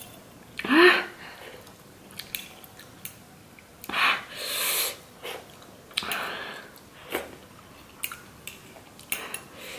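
Person chewing watermelon, with a short pained whimper about a second in and heavy, hissing breaths around four and six seconds in, from a mouth burning after spicy fire noodles. Light clicks of cutlery against the fruit come in between.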